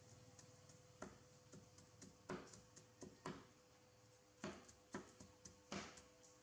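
Cleaver chopping greens on a round wooden chopping board: about eight faint, irregularly spaced knocks of the blade on the wood.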